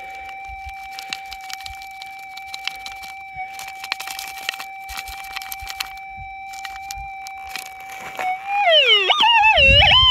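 Metal detector's steady threshold tone, with dirt and gravel crackling and ticking as soil is dumped from a scoop. About eight and a half seconds in, the tone turns loud and swoops down and up in a warbling target signal: the detector responding to the target in the dirt.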